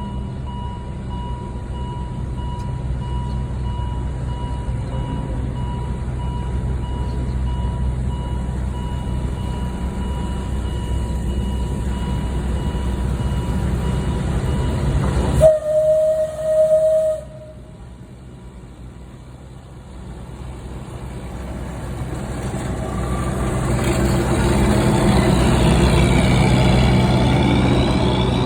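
Railway locomotive running with a steady rumble. About halfway through comes a short whistle toot, after which the sound drops away, then swells louder again toward the end.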